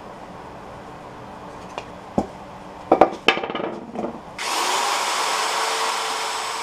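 A few sharp handling knocks as the wooden bowl is set down, then about four seconds in a cordless drill with a sanding disc starts up and runs against the bowl's foot: a steady whirring rasp of abrasive on Russian olive wood that slowly fades near the end.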